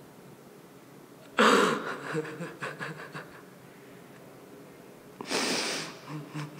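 Two loud, sharp bursts of breath close to the microphone, about a second and a half in and again about five seconds in, each followed by a run of short breathy pulses.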